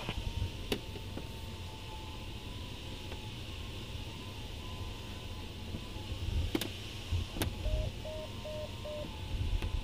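Steady airflow rush and rumble inside a Pégase C101A glider's cockpit in flight, with a faint wavering tone, a few sharp clicks, and four short beeps of one pitch near the end.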